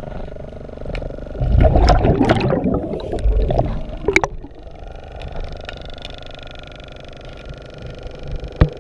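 Underwater sound during hull cleaning: a loud gurgling rush of a diver's exhaled air bubbles for about two seconds, a couple of sharp clicks, then a steady mechanical hum with several tones in it.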